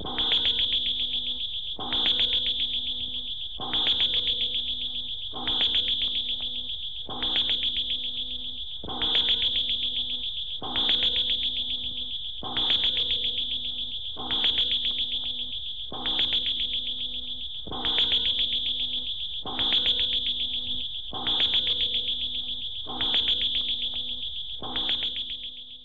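A looping electronic sound effect: a high, fast-pulsing trill over a low hum, starting sharply and fading away, repeated about every 1.7 seconds.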